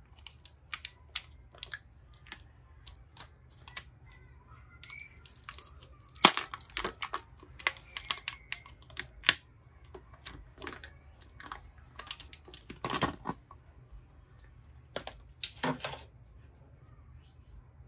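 Protective plastic film being picked at with fingernails and peeled off a new Samsung Galaxy Z Flip 3: a run of small sharp clicks and crinkles, with louder crackling bursts about six seconds in, around thirteen seconds and near sixteen seconds.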